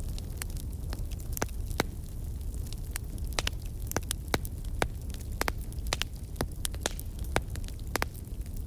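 Wood fire crackling: irregular sharp snaps and pops, several a second, over a low, steady rumble of burning.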